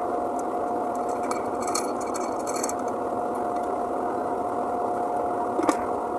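A machine running steadily with a constant whine, with a few light clicks over it.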